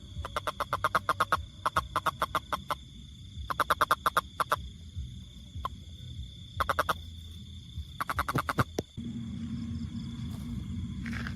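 A frog calling in repeated trills of fast, evenly spaced pulses, about ten a second, each trill lasting half a second to a second and a half. About nine seconds in the calls stop and a steady low hum takes over.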